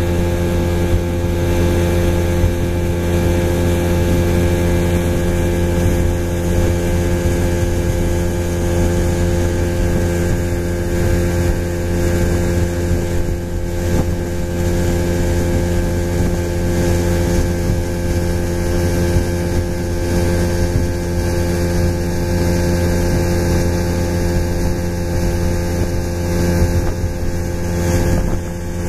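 Outboard motor running steadily at cruising speed, pushing a small boat along; a constant engine drone with no change in pitch.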